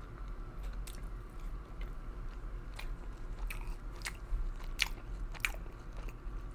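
Close-miked chewing of crispy fried chicken: irregular crunching and wet mouth clicks, a few louder crunches in the second half.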